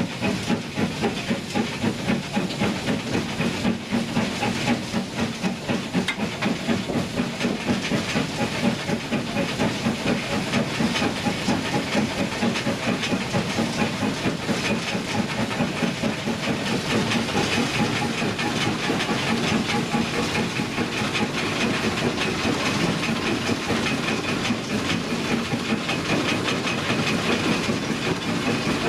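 GWR Hall-class 4-6-0 steam locomotive heard from its cab while working: a constant hiss of steam with a regular pulsing beat, clearest in the first several seconds and smoothing into a steadier sound later.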